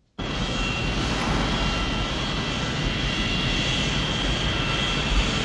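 Jet airliner's engines running on the ground: a loud, steady rushing noise with a high turbine whine, cutting in abruptly right at the start.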